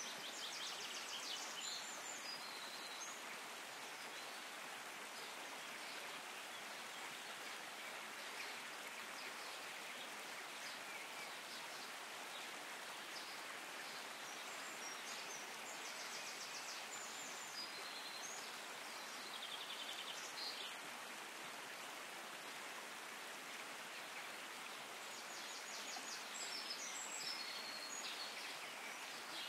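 Steady rush of a shallow stream running over rocks, with short high bird trills now and then.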